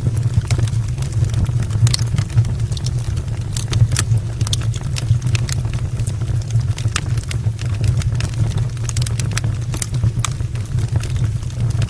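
Wood fire burning in an open brick fireplace: a steady low rumble of the flames with frequent, irregular sharp crackles and pops from the burning logs.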